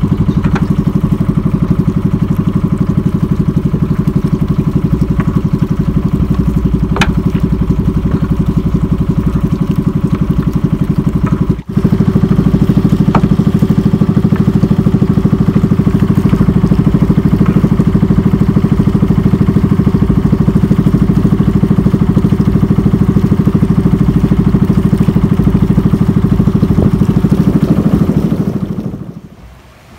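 Small fishing boat's engine running steadily under way, with a momentary drop about twelve seconds in; the engine sound dies away near the end.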